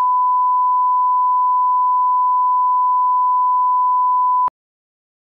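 Steady single-pitch test tone, the line-up beep that runs with SMPTE colour bars, cutting off with a click about four and a half seconds in.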